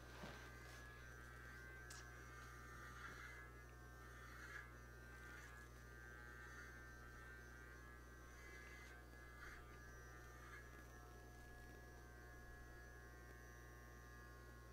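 Electric hair clippers running with a faint, steady buzz, plus a few soft ticks.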